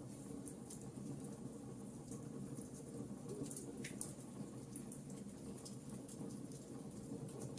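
Wood fire in a fireplace crackling, with irregular small pops and snaps over a steady low rumble.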